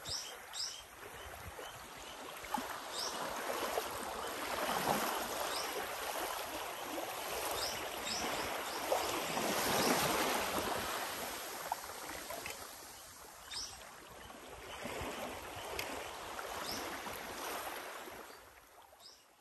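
Small waves lapping on a sandy beach, the wash swelling and ebbing every five or six seconds, with a few faint short high ticks. The sound fades out near the end.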